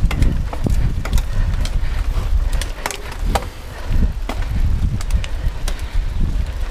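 Mountain bike ridden over a rough dirt trail, picked up by a handlebar-mounted action camera: frequent clicks and rattles of the bike over bumps, over a steady low rumble of wind on the microphone.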